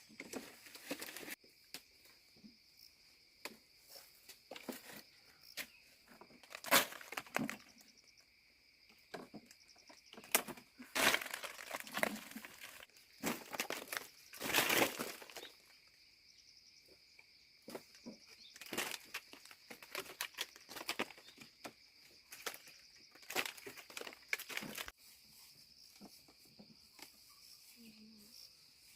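Irregular rustling and crinkling handling noises, short scattered strokes with a few louder ones, over a steady high-pitched drone that stops near the end.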